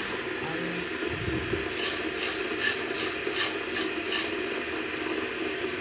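Spatula scraping and stirring dry, toasted rice grains in a frying pan, with a run of rhythmic scraping strokes from about two seconds in.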